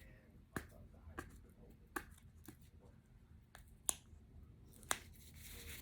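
Quiet clicks and taps of a cardboard mailer being handled and opened, with a short tearing rustle near the end.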